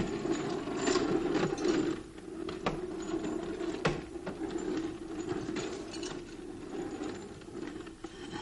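Scattered clicks and rattles of a light aircraft's cabin door and a bag being handled, over a steady low hum.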